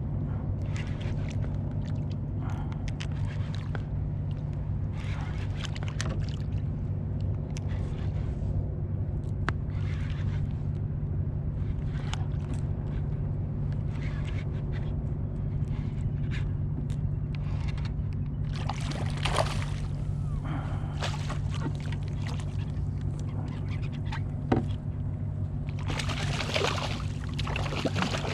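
Water sloshing and splashing against a kayak's hull, in irregular bursts that bunch up about two-thirds of the way in and again near the end, over a steady low hum.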